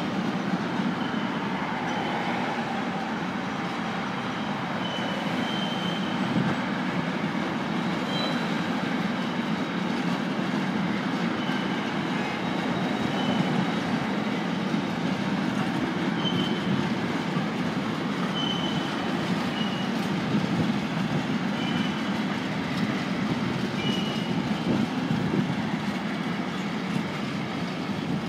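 Container freight train of flat wagons rolling steadily past: a continuous rumble of wheels on rail, with brief high wheel squeals every few seconds.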